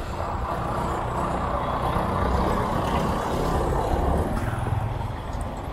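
Street traffic: vehicle engines running and passing, a steady low rumble.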